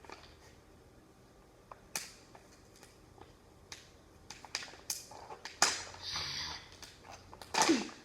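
Toy packaging being handled and opened: scattered crinkles, rustles and small clicks, growing into a longer rustle about five seconds in and a loud crinkle near the end.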